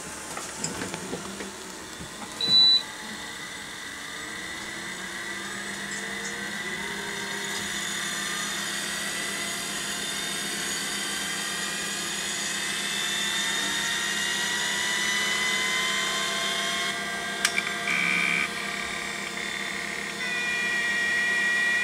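Seagate PA4E1H 5.25-inch full-height SCSI hard drive powering up, quite loud: the spindle motor's whine climbs slowly in pitch as the platters spin up, with a short high beep about two and a half seconds in. Near the end come clicks and buzzing tones from the heads' seek test, the sign that the drive is passing its start-up checks.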